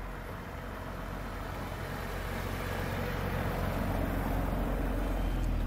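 BMW E46 3 Series car running at low speed, its engine hum and road noise growing steadily louder as it approaches.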